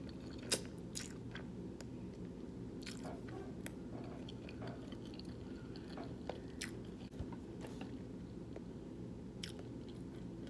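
Close-miked eating: chewing with scattered wet mouth clicks, about one a second, over a steady low hum in the room.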